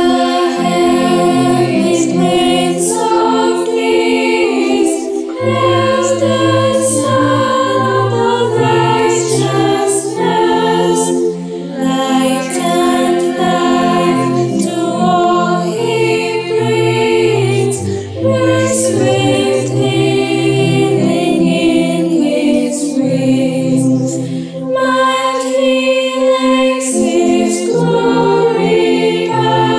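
School chapel choir singing in harmony, held chords moving from note to note without a break.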